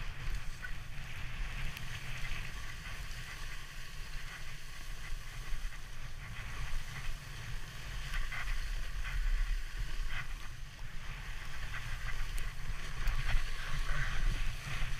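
Wooden sledge's runners sliding fast over packed snow, a steady scraping hiss over a low rumble, with a few light knocks as the sledge rides over bumps.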